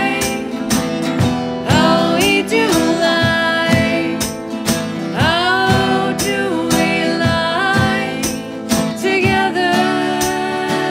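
Acoustic folk duo performing: two women sing together in long held notes over two strummed steel-string acoustic guitars.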